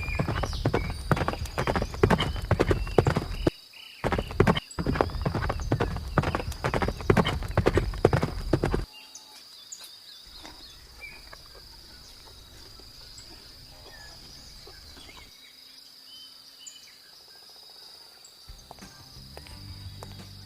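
Horse hooves beating fast on hard ground, a rapid clip-clop for about nine seconds with a brief pause near the fourth second, then stopping. A faint, steady high-pitched insect-like drone runs underneath.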